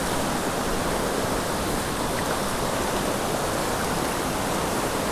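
Steady rush of a small mountain creek's flowing water.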